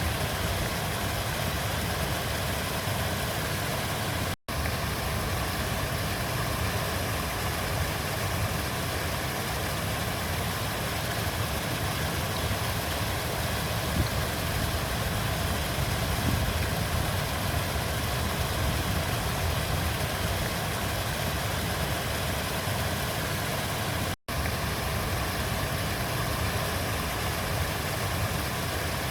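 River water flowing in a steady, even rush with a low rumble. The sound drops out for a split second twice, about four seconds in and again near the end.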